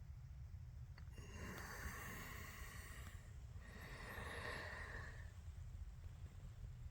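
Two long breaths close to the microphone, each lasting about two seconds, over a steady low rumble.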